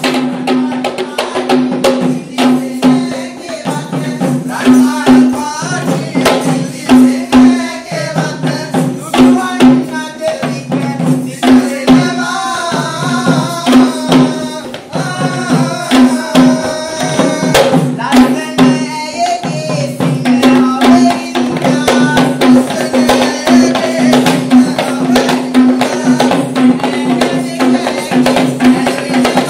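Kandyan geta bera drums beaten by hand in a dense, fast rhythm for Kandyan dance, with jingling from the dancers' costume ornaments. A wavering melody line sits over the drumming through much of the middle.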